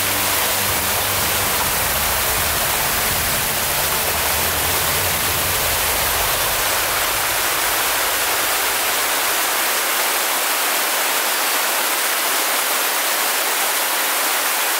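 Water rushing down a small rocky waterfall cascade, a loud, steady hiss.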